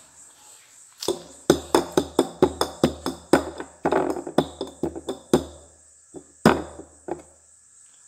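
A quick run of sharp knocks, about three a second for some four seconds, then one more knock a second later: bowls being shuffled and set down on a hard surface.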